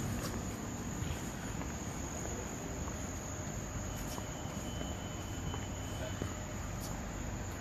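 Night insect chorus of crickets: a steady, high-pitched trill that holds unbroken, over a low background rumble.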